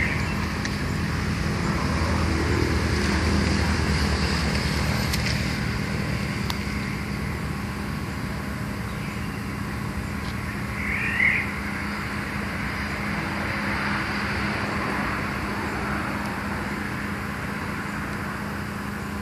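Steady outdoor background rumble with a constant low hum, like distant traffic or a motor, and one brief high chirp about eleven seconds in.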